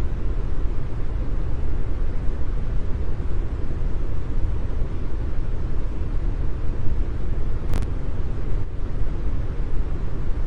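Brown noise: a steady, deep rushing hiss, heaviest in the low end and thinning out toward the highs, with no pattern or change.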